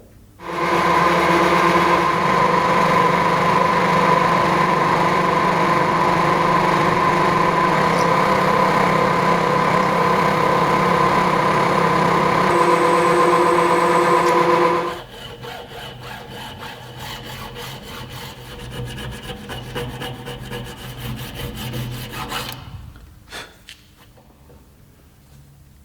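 A power tool runs steadily under load for about fourteen seconds, holding a steady hum and whine. It then stops and gives way to quieter, fast rasping strokes of abrasive work for several seconds, followed by a few light clicks.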